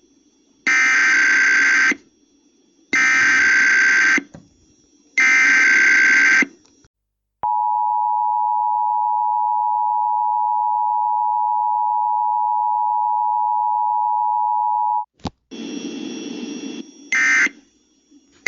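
Emergency Alert System tones for a Required Weekly Test over broadcast radio: three harsh, buzzing SAME data header bursts about a second apart, then the steady two-tone attention signal (853 and 960 Hz) for about eight seconds. After a brief burst of other sound, shorter end-of-message data bursts begin near the end.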